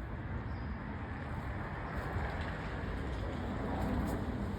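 Steady outdoor background rumble with no distinct calls.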